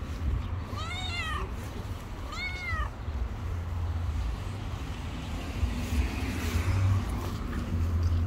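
Cat meowing twice, two short meows that rise and fall in pitch about a second and a half apart, over a steady low rumble.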